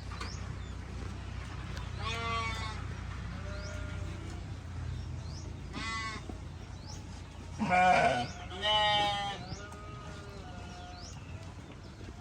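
Sheep bleating: a handful of wavering bleats, some faint, the loudest two close together near the end.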